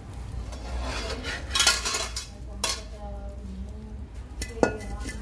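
Metal cookware clattering and clinking, then one sharp clang about four and a half seconds in as a metal wok is set down on a clay charcoal stove, ringing briefly.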